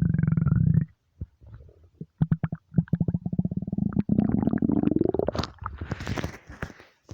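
Empty human stomach rumbling and gurgling: a deep growl near the start, then a run of rapid bubbling pops, and a longer growl that rises in pitch about four to five seconds in.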